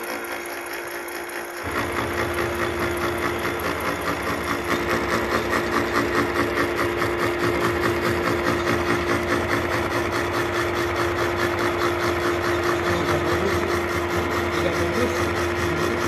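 Milling machine running with a disc gear cutter cutting a tooth space into a duralumin spur-gear blank: a steady machine hum and tone with rapid, even ticking of the cutter teeth biting the aluminium. It gets louder about two seconds in.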